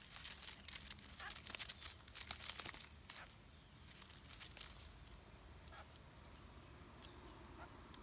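Leaves and twigs rustling and crackling for about three seconds, with another short rustle around four seconds in, as a bird moves through the foliage. A few faint, short, rising bird calls come through here and there.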